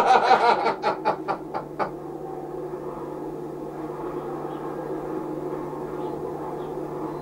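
A burst of laughter, about eight quick pulses fading out over the first two seconds, then a steady low hum.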